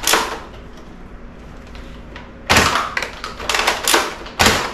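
Nerf Flip-32 blaster firing foam darts. A sharp pop comes about halfway through, then a few lighter knocks of darts hitting things, and another pop near the end.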